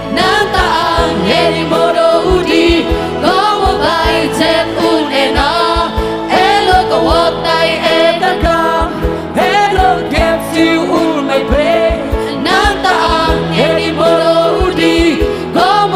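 A group of men and women singing a song together into microphones, backed by an amplified band with a steady beat.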